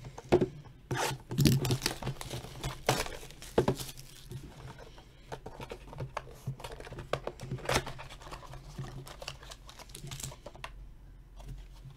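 A trading-card box being torn open and its contents handled: cardboard tearing and foil packs and cards crinkling, in a run of short rustles and snaps.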